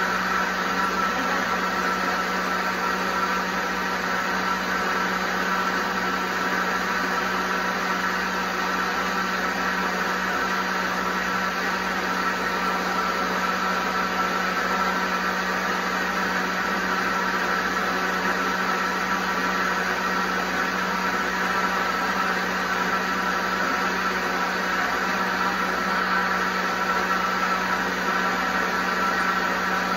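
Vitamix blender motor running steadily on speed 8, blending soaked almonds, dates and water into almond milk: an even, loud whine over a low hum.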